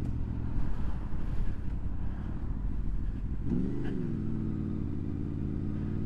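Honda VFR's V4 motorcycle engine running under a low rumble of wind on the microphone; about three and a half seconds in the engine note rises and falls briefly, then holds steady.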